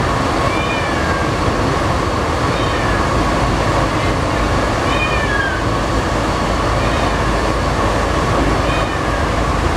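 An Alstom NS-93 rubber-tyred metro train running, with a steady rumble and a faint steady whine. About every two seconds a short high squeal slides downward in pitch.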